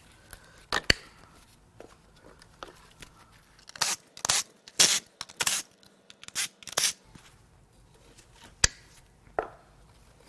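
Side cutters snipping through a fire-burned wiring harness, a couple of sharp snips about a second in. Then several short bursts from a cordless power tool on the coil-pack bolts, with two more sharp clicks near the end.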